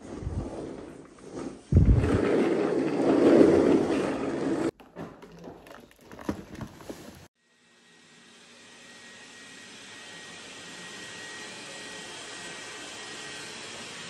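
Knocking and rustling as an office chair is handled and moved, with a dense loud stretch that cuts off suddenly. About halfway through, a robot vacuum cleaner's motor and brushes fade in to a steady whirr with a faint high whine.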